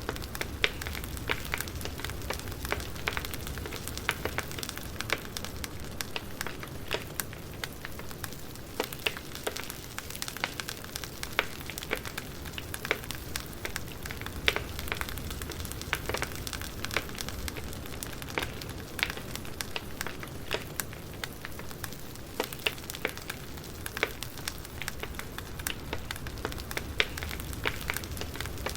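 Campfire burning: wood crackling and popping in sharp, irregular snaps over a steady low rush of the fire.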